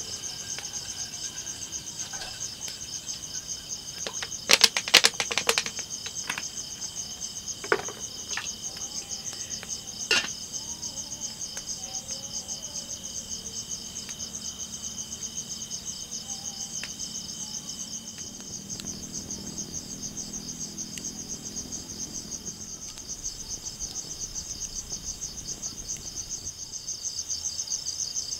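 A steady chorus of night insects, a fast even trill. A quick cluster of sharp clicks and clatters comes about four to five seconds in, the loudest thing here, with single knocks near eight and ten seconds.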